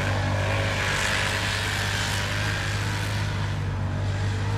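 A vehicle engine idling steadily, a low even hum that holds without revving.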